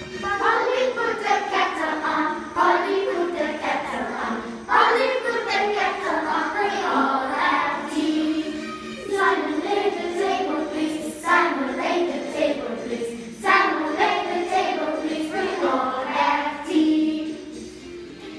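A group of children singing together, the song going in short phrases that restart every two to three seconds.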